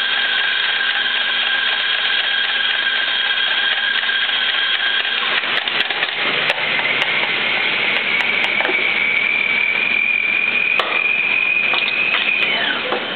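Electric espresso coffee grinder running with a steady whine, grinding the beans for a shot; the pitch shifts about halfway through. Several sharp clacks of the doser lever come as grounds are dispensed, then the motor is switched off and its whine glides down near the end.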